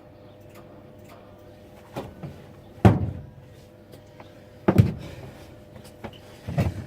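Four hard knocks or clunks a second or two apart, the loudest about three seconds in, over a faint steady hum. They come from handling the welding gear as the wire-feed welder's wire jumps off its spool again.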